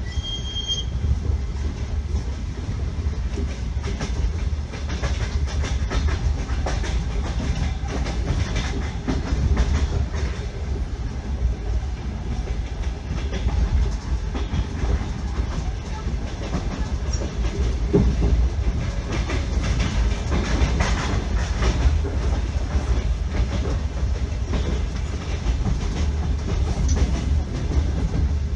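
Passenger train running, heard from aboard: a steady low rumble with the clickety-clack of the wheels knocking over rail joints. A brief high tone sounds just under a second in.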